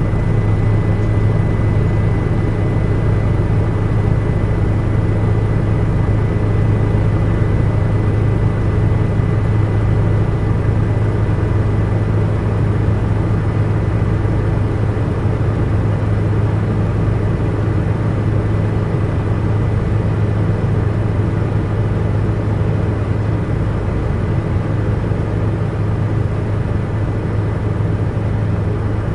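Helicopter in flight heard from inside the cabin: a steady, deep drone of rotor and engine with a faint, thin high whine over it.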